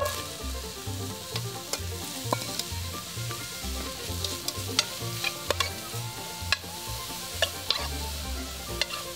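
Chopped onions, poblanos and jalapeños sizzling in an aluminum Dutch oven over a campfire, with a utensil clicking and scraping against the pot as they are stirred and the fond is scraped up. Background music runs underneath.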